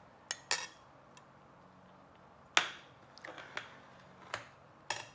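Dishes and cutlery being handled: about six sharp clinks and knocks, the loudest about half a second and two and a half seconds in.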